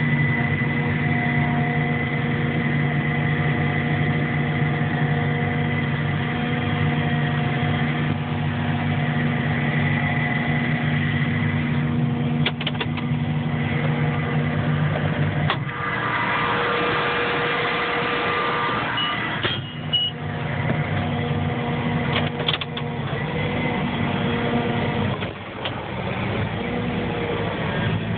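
Vehicle engine idling with a steady hum, its pitch pattern shifting about halfway through. A few short sharp knocks come over it in the second half.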